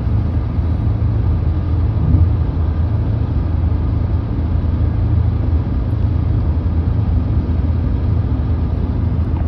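Steady low rumble of a car driving along a highway, road and engine noise heard from inside the cabin.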